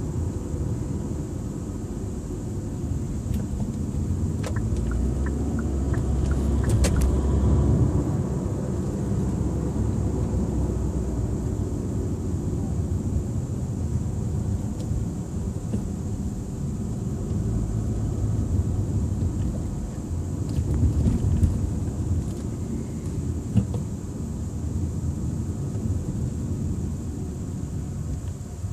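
Kia Optima 2.0T turbocharged four-cylinder driving, heard from inside the cabin: a low engine and road rumble that swells and eases, loudest about seven seconds in. The car is fitted with an Injen short ram intake, which lets more turbo sound into the cabin.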